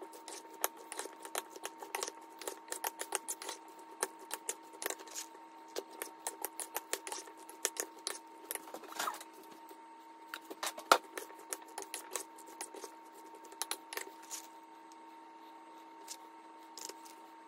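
Rapid, irregular light clicks and clinks of a utensil against a bowl while chaat is seasoned and mixed, several a second, with a sharper clink about eleven seconds in, over a faint steady hum.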